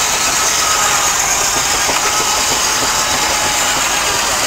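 Steam traction engine driving a circular saw bench by a long flat belt: a steady mechanical running noise with a rapid light beat and a hiss.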